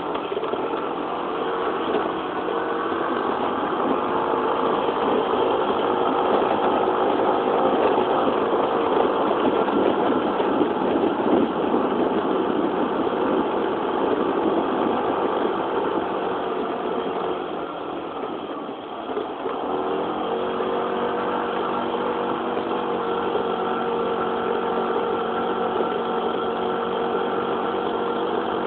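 Yamaha Jog 50 cc four-stroke scooter engine running on the move, with wind and road noise over it. The engine is louder for the first half, dips briefly about eighteen seconds in, then settles into a steady note.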